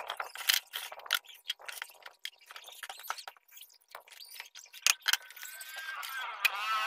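Irregular sharp clicks and knocks of plywood pieces being handled and fitted together while an L-shaped subwoofer port is assembled, a few of them louder raps.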